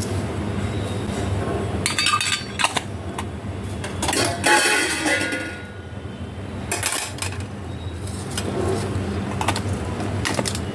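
Kitchen dishes and utensils clinking and knocking a few times over a steady low hum, with a louder scraping rattle about four seconds in.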